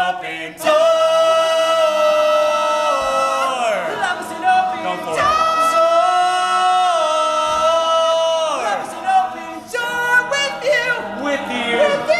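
Male a cappella group singing close-harmony chords with no instruments: two long held chords that each slide down together in pitch, about three and a half and eight and a half seconds in, then shorter, quicker notes.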